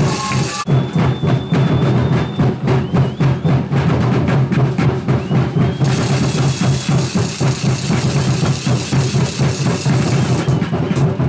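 Drums beating a fast, steady rhythm.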